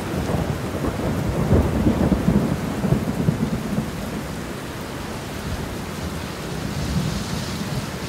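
Heavy rain falling steadily, with a low rumble of thunder that swells about a second in and dies away by about four seconds.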